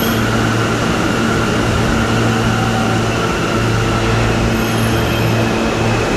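R160 subway train alongside the platform, giving a steady electrical hum and whine. Near the end a higher whine starts to rise.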